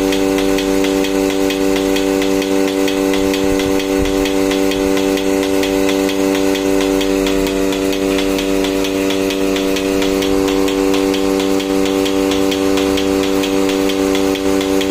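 Portable milking machine running steadily, its vacuum pump motor giving a constant hum with a fast, even ticking over it, while the teat cups milk the cow.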